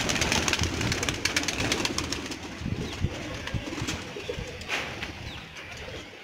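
Flock of domestic pigeons cooing, with a loud flurry of wing flapping at the start that dies away over the first second or so.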